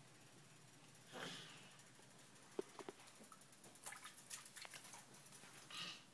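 Faint small splashes and ticks of water as a baby's hands play in bathwater in a stainless steel kitchen sink, with two soft breathy sounds, about a second in and near the end.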